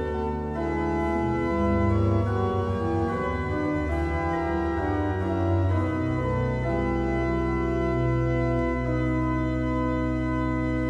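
Church organ playing a slow passage of held chords, with a deep pedal bass note coming in about six seconds in.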